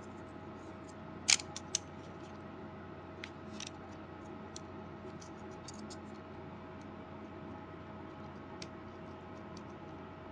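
Small clicks and ticks of a 3.5-inch floppy disk's metal shutter and spring being handled and fitted. There are two sharper clicks about a second and a half in, then fainter scattered ticks.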